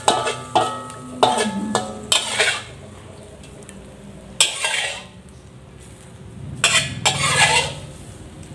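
Metal ladle scraping and clinking against a wok and a stainless steel bowl in short strokes, scooping out the last of the stir-fry sauce. There are several quick scrapes in the first two seconds, then two longer ones about four and a half and seven seconds in.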